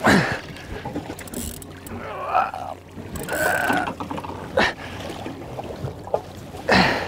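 Wind and sea noise around a small fishing boat, broken by several short loud gusts or knocks.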